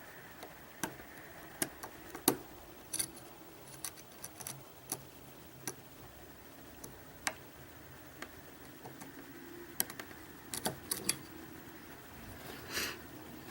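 Lock pick and tension tool working in the keyway of a Mul-T-Lock Interactive lock: scattered small metallic clicks and ticks as the pins are picked, with a brief scrape near the end.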